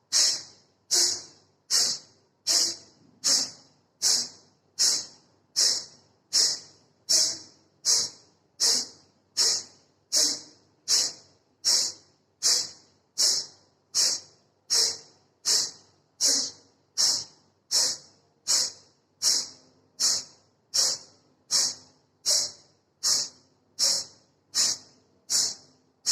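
Forceful exhalations through the nose in kapalbhati breathing: short, sharp puffs of air from the nostrils, a little more than one a second, in an even rhythm.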